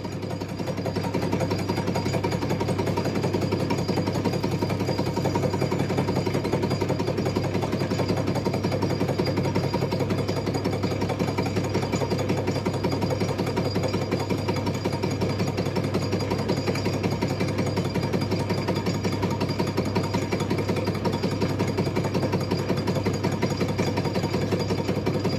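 Hercus 9A lathe on automatic feed, facing a mild-steel anvil held in a four-jaw chuck: a steady, rapid, even clatter of the tool bit cutting, over the low hum of the running machine. The rhythm is typical of an interrupted cut on an off-centre, rectangular workpiece.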